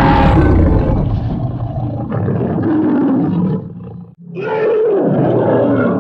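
Cartoon dinosaur roar sound effects: two long roars one after the other, the first about three seconds long and the second about two, with a short break between them. A rock music track fades out in the first second.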